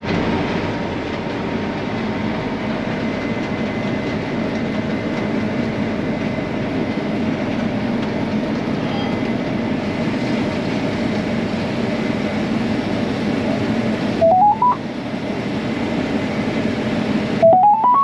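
Steady hum and rush of a combine harvester running while harvesting barley, heard from inside its cab. Twice near the end, a short run of beeps climbs in pitch over it.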